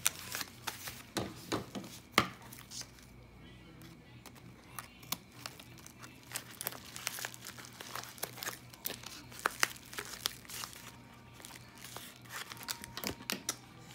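Yellow padded mailer being handled and cut open with scissors: irregular crinkling of the paper with scattered snips and clicks, the sharpest click about two seconds in.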